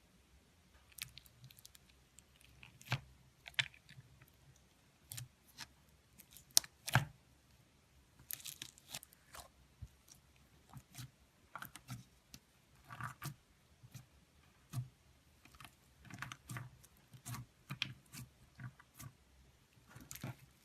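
Slime being squeezed and poked by hand, making irregular sticky clicks and crunchy crackles.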